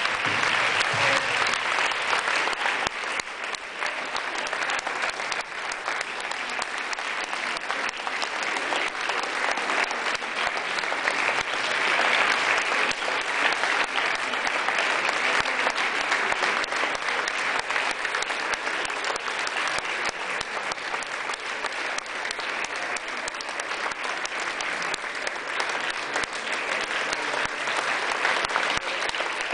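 A large audience of students clapping in one long, unbroken round of applause. It eases a little a few seconds in, then swells again.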